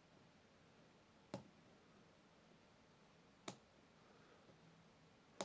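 Three faint, sharp metallic clicks about two seconds apart against near silence, from a picked pin-tumbler lock core and small tools being handled.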